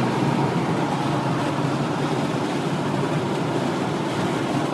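Steady driving noise of a car heard from inside the cabin while it moves along the road: an even low noise with no distinct events.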